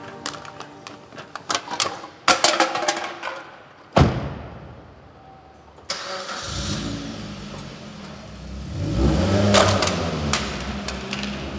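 Rustling and clicking, then a single sharp slam about four seconds in, like a car door shutting. About two seconds later a car engine is started, revs up briefly and settles into steady running.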